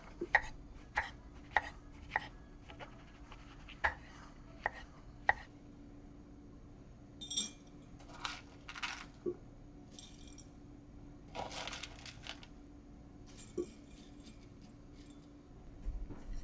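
Kitchen knife slicing a shiitake mushroom on an end-grain wooden cutting board: about eight crisp chops over the first five seconds. Then washed rice is tipped from a colander into a small enamelled cast-iron Staub pot, a few soft rustling pours.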